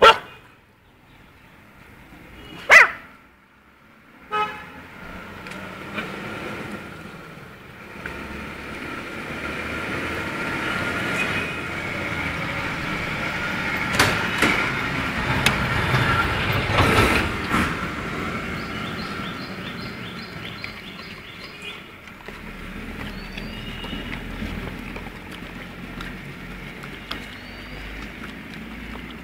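Motor traffic passing along a street, swelling to its loudest around the middle and then fading, with a few sharp knocks in the first few seconds.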